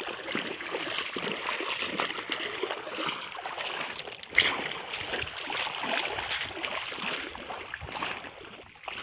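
Footsteps splashing through shallow water over a pebble riverbed, with the stream's steady rush of water around them. One sharper, louder hit comes about four and a half seconds in.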